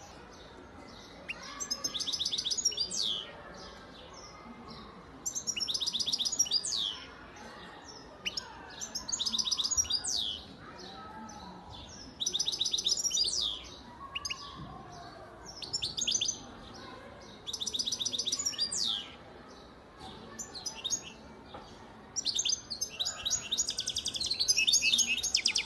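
European goldfinch singing: short phrases of fast, rapidly repeated high notes about every two to three seconds, with a longer unbroken stretch of song near the end.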